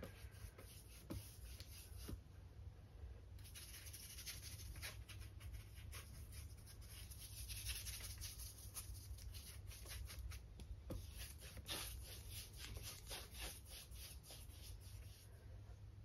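Flat paintbrush scrubbing acrylic paint onto a canvas board: a faint dry scratching of the bristles in many short, quick strokes.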